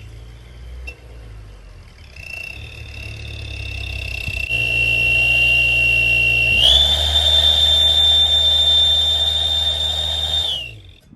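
Turbo whistles in a 2020 Nissan Altima's exhaust whistling as the car accelerates: a steady high whistle that grows louder, steps up in pitch partway through, then drops and stops near the end. The engine drones low underneath.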